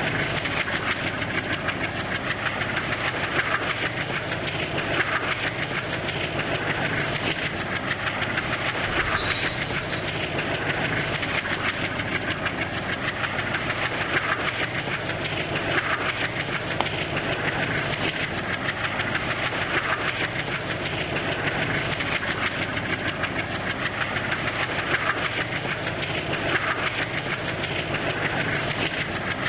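Indian Railways train running steadily, its wheels clacking over the rail joints at intervals over a continuous rumble.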